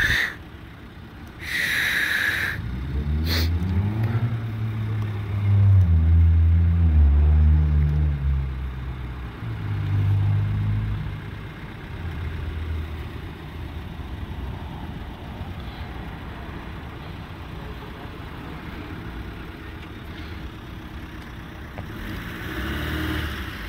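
A car's engine accelerating close by, rising in pitch and loudest about six to eight seconds in, with a second swell around ten seconds. After that a low steady traffic rumble. A brief high-pitched sound comes about two seconds in.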